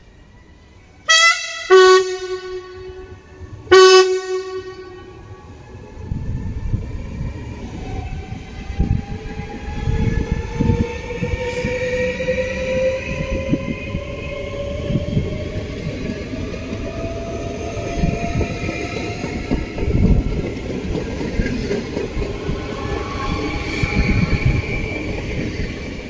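NS VIRMm double-deck electric train sounding its horn as a greeting: two short blasts about a second in, then a third near four seconds. It then pulls away past on the rails, a whine rising in pitch as it accelerates over a loud rumble of wheels.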